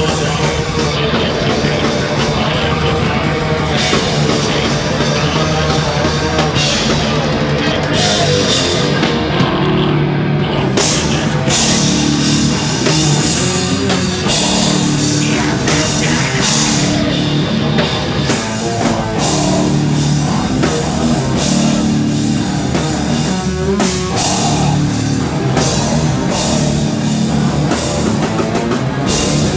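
Live heavy rock band playing loud, with electric guitars over a drum kit keeping a steady beat.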